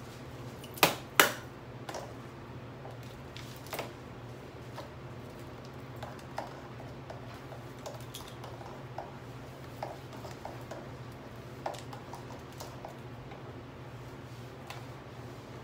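Scattered plastic clicks and knocks, two sharp ones about a second in, from a switched-off Bissell upright vacuum being handled, over a steady low hum.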